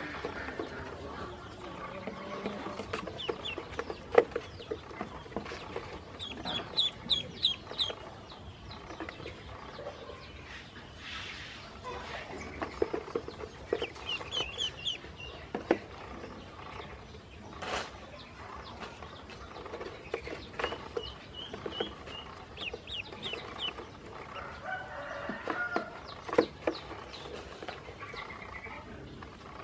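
Ducklings peeping in short runs of quick, high peeps, over a soft shuffling, with scattered sharp taps of bills pecking feed off the bottom of a plastic crate.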